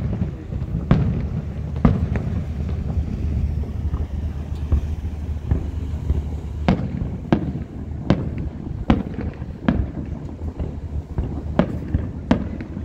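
Aerial fireworks shells bursting in a string of sharp bangs at irregular intervals, coming faster in the second half, over a steady low rumble.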